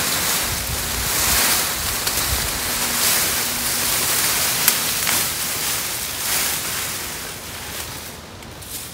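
Leafy cut branches dragged through brush and over the forest floor: a continuous rustling and swishing of leaves and twigs that comes in surges, with one sharp tick about halfway through, and fades near the end.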